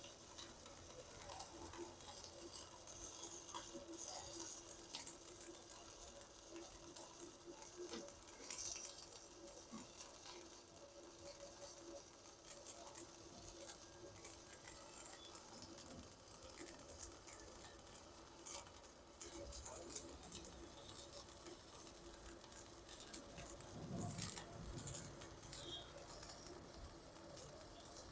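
Stick (MMA) arc welding with a 3.2 mm electrode on 10 mm thick steel, powered by a Yoko 220 welder: the arc crackles and sputters unevenly and keeps burning without a break as more than half the rod is run.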